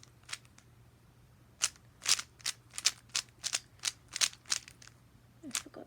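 Rubik's cube faces being turned by hand: a run of sharp plastic clicks and clacks, about three a second, starting about a second and a half in.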